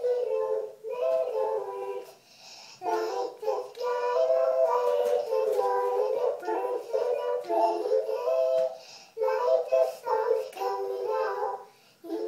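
A young girl singing a tune into a toy microphone in short sung phrases, with a brief break about two seconds in and another near the end.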